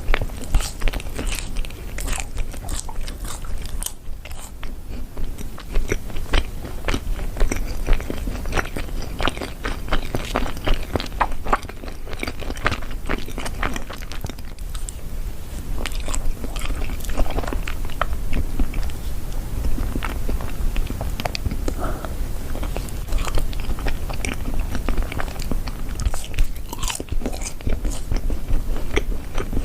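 Someone biting into and chewing yakgwa, Korean fried honey cookies, close to the microphone, with many short crunchy clicks throughout.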